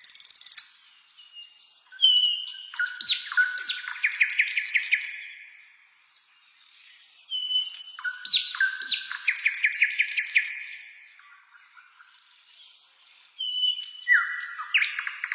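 A songbird singing the same complex phrase again and again, each about three seconds long with a new phrase every six seconds or so: clear whistled notes sliding up and down, then a rapid trill.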